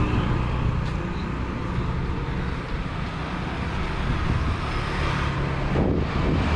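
Steady road traffic, with motor vehicle engines running close by.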